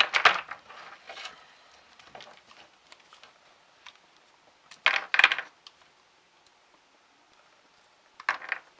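Small pieces of scrap metal clinking and rattling as they are handled and dropped, in three short bursts: at the start, about five seconds in, and near the end.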